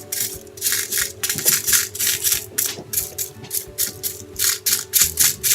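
Container of sprinkles being shaken over slime, rattling in quick, even shakes of about four a second.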